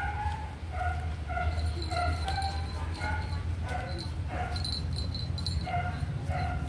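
Sleeping puppies whimpering: short, high whines about twice a second over a steady low hum.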